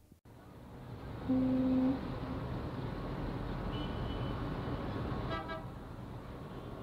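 Experimental sound-art tape recording: after a brief dropout, a steady noisy rumble begins. About a second in, a loud horn-like tone lasts about half a second, and a few fainter short tones follow later.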